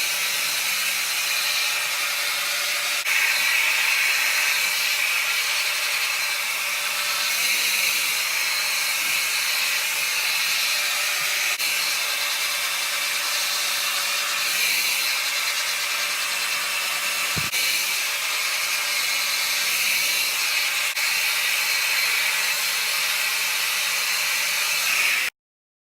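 VS Sassoon hand-held hair dryer blowing steadily, a loud rush of air over a faint motor hum, with its cold-shot button held down for cool air. The sound cuts off abruptly near the end.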